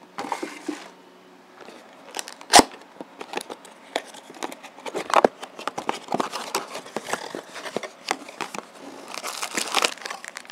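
Cardboard box and plastic packaging being opened and handled: a run of clicks, knocks and crinkling rustles, with one sharp knock about two and a half seconds in and a burst of denser rustling near the end.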